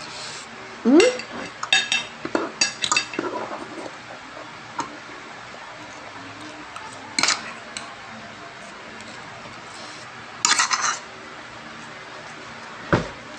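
Metal spoon and fork clinking and scraping against ceramic plates while eating, in a few short clusters of clicks with gaps between them.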